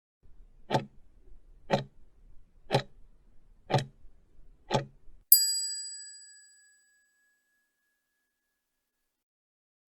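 Countdown timer sound effect: five clock ticks a second apart, then a bright bell ding that rings out over about a second and a half, marking the end of the time to answer.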